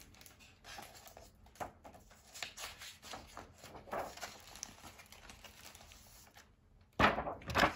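Pages of a large picture book being handled and turned: soft, irregular paper rustles and flicks.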